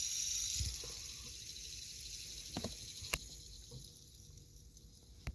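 Fidget spinner spinning, a soft high whirr that fades steadily as it slows down, with a few small clicks around the middle and at the end.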